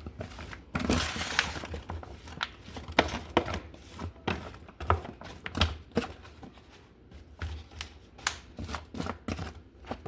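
Spoon stirring oiled, seasoned vegetables: irregular clicks and scrapes, with a rustling stretch about a second in.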